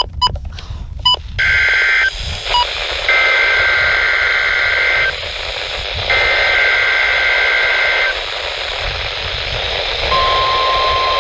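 NOAA Weather Radio broadcast over receivers: a few short beeps, then three bursts of the warbling two-tone SAME digital alert header, one to two seconds each, over radio static. About ten seconds in, the steady 1050 Hz weather-radio alert tone begins.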